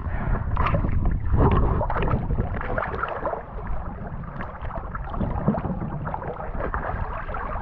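Choppy sea water splashing and slapping around a camera held at the water's surface, with irregular small splashes over a steady wash.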